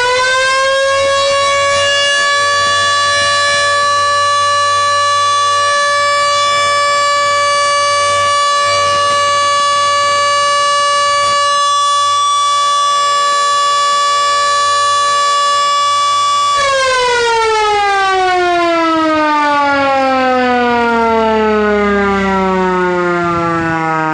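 110 V electric burglar alarm siren sounding a loud, steady high-pitched wail. About 16 seconds in, it winds down in a long falling glide as it runs down.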